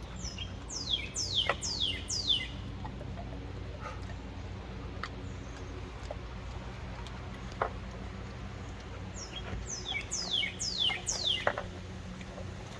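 A songbird singing two phrases about eight seconds apart, each a quick series of about five high notes that sweep steeply downward. A few faint clicks fall between the phrases, over a steady low hum.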